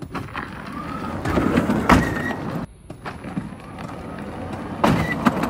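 Golf cart driving on an asphalt street: a noisy rush of tyre and drive noise, with a sharp knock about two seconds in, a sudden drop near three seconds, and a few more knocks near the end.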